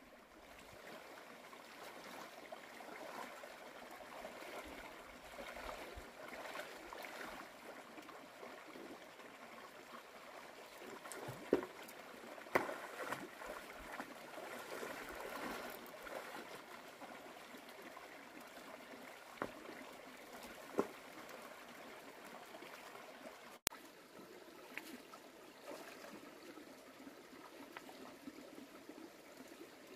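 Shallow stream running over rocks, a steady trickle, with a few sharp knocks and splashes of someone wading among the stones, the loudest around the middle.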